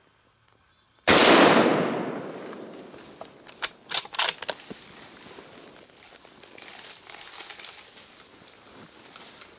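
A single scoped hunting rifle shot about a second in, its echo rolling away through the woods over about a second and a half. A few sharp clicks follow a couple of seconds later.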